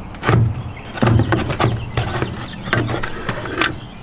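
A quick string of plastic clicks and knocks with scraping as the old third brake light assembly is lifted off the cab roof and handled, its wiring still attached.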